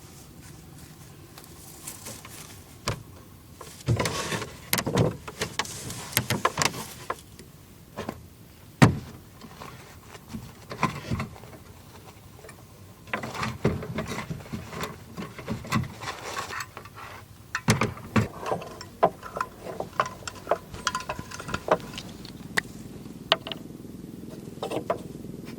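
Irregular knocks, taps and rustling in bursts, the loudest single knock about nine seconds in, over a faint low steady background.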